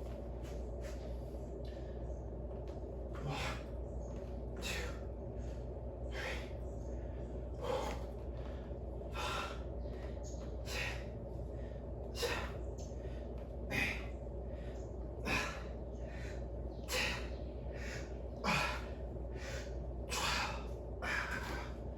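A man's sharp, forceful breaths in a steady rhythm during a set of weightlifting reps, one about every one and a half seconds from about three seconds in, over a steady low hum.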